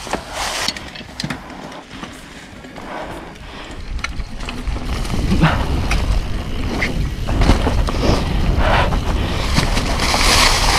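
Mountain bike riding down a dirt trail: tyres crunching and rattling over the ground, with a low rumble that builds about four seconds in as the bike picks up speed.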